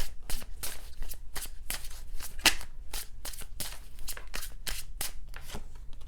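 Deck of tarot cards being shuffled by hand, a quick even run of about four card riffles a second.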